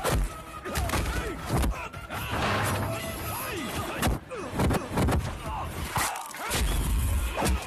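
Fight-scene sound effects: a rapid series of punch and body-impact thuds over background music.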